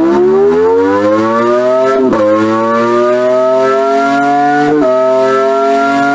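Simulated five-rotor Wankel rotary engine from an engine simulator, pulling hard through the gears. Its smooth tone climbs steadily in pitch and drops suddenly at each upshift, about two seconds in and again near five seconds.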